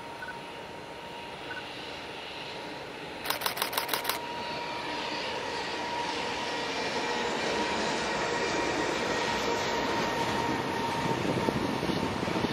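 Electric-hauled freight train of container wagons running across a girder bridge, its rumble growing steadily louder as it comes nearer. About three seconds in, a camera shutter fires a rapid burst of about six clicks.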